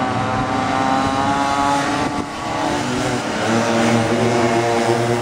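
Several minimoto (pocket bike) two-stroke engines buzzing at high revs as the bikes race past, their pitch dipping and rising a little with the throttle.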